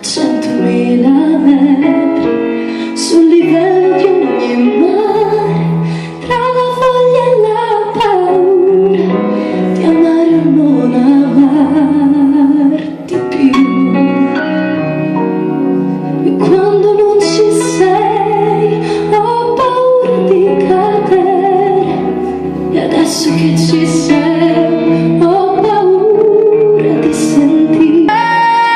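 A woman singing with vibrato over instrumental accompaniment with a steady bass line.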